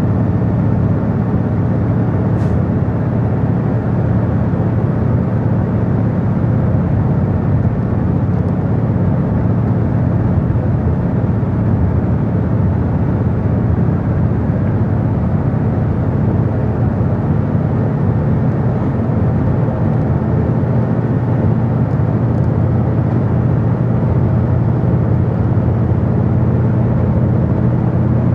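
Steady running noise of a vehicle cruising on a highway: a constant low engine hum mixed with tyre and wind rush.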